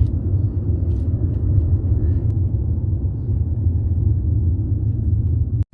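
Steady low rumble of a car on the move, heard from inside the cabin: road and engine drone, cut off suddenly near the end.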